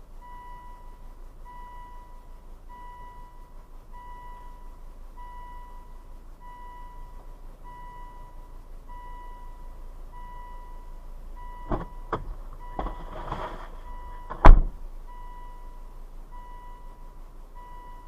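Steady, evenly spaced electronic beeping. A few knocks come in the second half, then one loud bang, the loudest sound, near the end.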